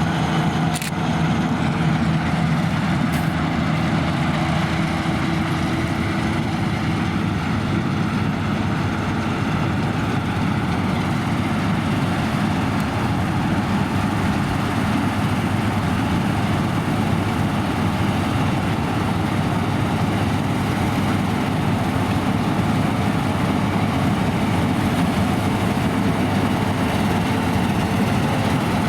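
Claas Lexion 580 Terra-Trac combine harvester running steadily under load, a constant engine and machinery drone.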